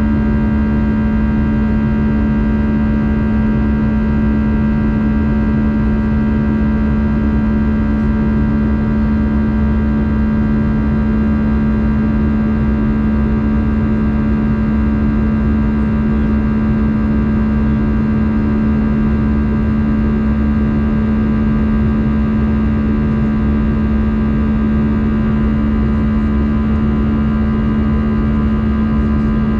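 Airbus A320 in flight, heard from inside the cabin: the engines and rushing air make a loud, steady drone with a strong low hum and several faint steady whines above it.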